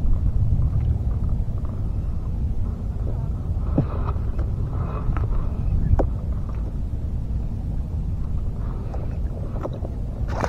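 Small waves sloshing and lapping against a floating box at the water surface, with wind on the microphone, a steady low rush broken by a couple of faint knocks.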